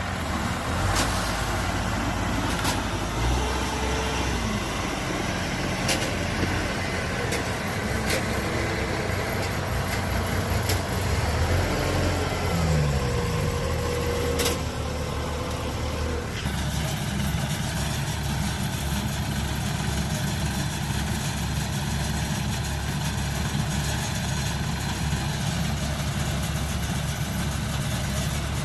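Combine harvester's diesel engine running, with scattered sharp clanks in the first half. After about sixteen seconds it settles into a steady, even run.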